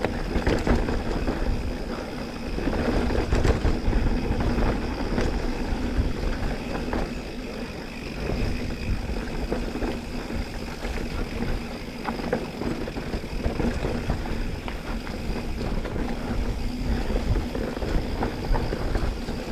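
Mountain bike riding down a dirt trail: a steady rumble of wind and tyres, with the bike rattling in many quick ticks throughout.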